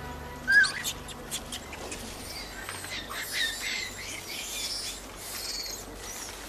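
Young Japanese macaques giving a few short high squeaks and chirps as they climb through branches, with several sharp clicks in the first couple of seconds, over faint forest ambience. Soft background music fades out about half a second in.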